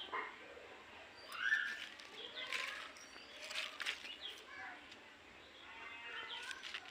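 Small birds chirping, many short calls that rise and fall in pitch, the loudest one about a second and a half in.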